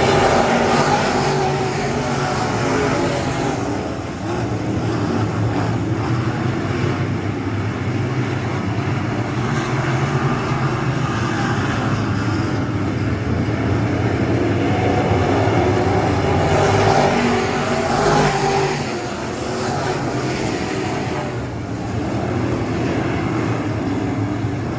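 A pack of dirt-track race cars running at racing speed around the oval, engines continuously loud and rising and falling as the cars pass. The sound swells loudest as the field goes by near the start and again about two-thirds of the way through.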